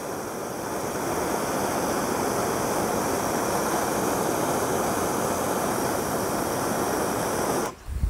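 Handheld gas torch on a yellow fuel cylinder burning with a steady hiss as its flame sterilizes the blades of pruning shears. The flame is shut off abruptly near the end.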